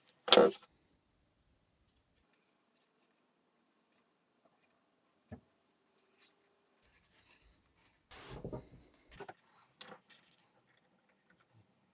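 Small hand-work noises in a small room: a short scrape just after the start, scattered light clicks, and a longer rustling scrape about eight seconds in, followed by a couple of sharper clicks.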